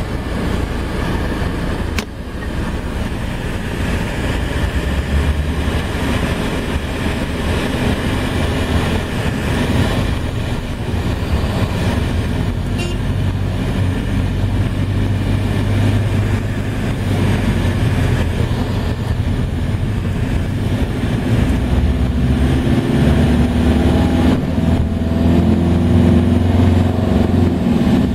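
Engine and road noise heard from inside a moving vehicle, a steady low hum under a wash of tyre and wind noise. In the last few seconds the engine note rises as it speeds up.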